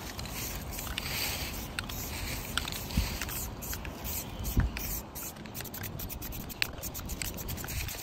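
Aerosol spray-paint can hissing in short bursts of about a second each, with a run of quick clicks and crackles in the second half.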